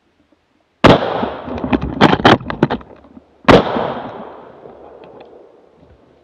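Two gunshots from a hunting gun, about two and a half seconds apart, each followed by a long rolling echo through the forest. Several sharp cracks come between the two shots.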